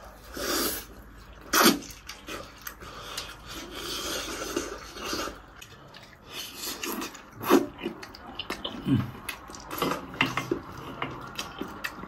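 Close-up eating sounds: people chewing and sucking tender braised meat, with wet slurps and mouth smacks in an irregular run, and two sharp, louder mouth sounds about a second and a half in and again about seven and a half seconds in.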